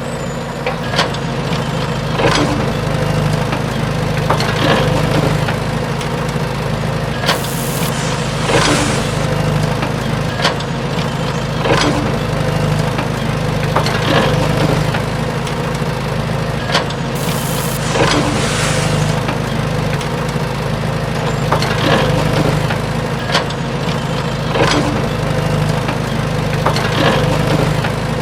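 Small motor of a DIY miniature tractor running steadily, with scattered clicks and knocks and a brighter swell about every two seconds.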